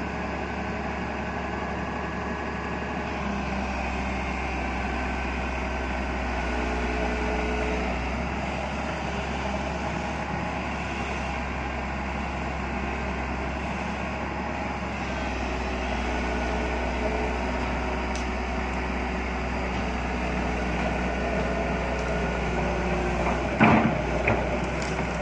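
Komatsu crawler excavator's diesel engine running steadily, its low hum stepping up and down as the machine works. Two sharp knocks near the end stand out above the engine.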